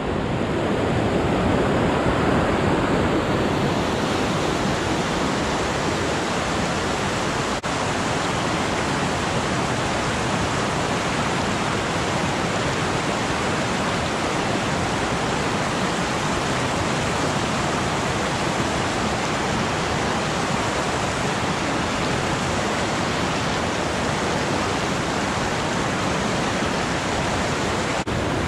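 Fast mountain creek running over a bed of boulders: a steady, loud rush of whitewater.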